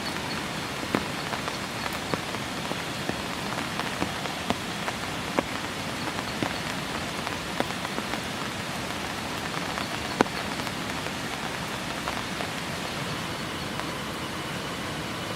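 Heavy rain falling steadily, a dense hiss, with single louder drops ticking at irregular moments.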